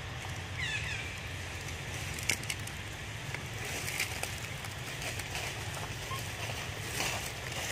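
Outdoor ambience: steady low wind rumble on the microphone, with a short run of high chirps about half a second in and a sharp click a little past two seconds.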